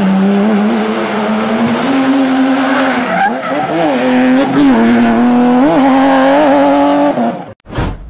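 Sports car drifting on tarmac: the engine is held at high revs with several quick dips and rises in pitch, over tyre squeal. It cuts off near the end, and a short burst of noise follows.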